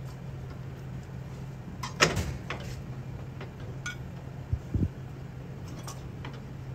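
Sharp metallic clinks and knocks of tools and parts being handled during e-bike drum-brake work: one loud click about two seconds in, a few lighter ticks after it, and two dull knocks near the five-second mark, over a steady low hum.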